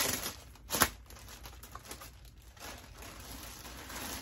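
Clear plastic garment packaging crinkling and rustling as a piece of clothing is unwrapped and pulled out, with one sharp, loud crackle just under a second in and softer rustling after.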